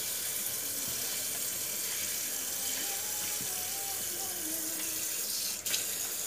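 Kitchen tap running steadily into a stainless steel sink, the stream splashing onto a tray of small fish as a hand rinses them. A short knock comes near the end.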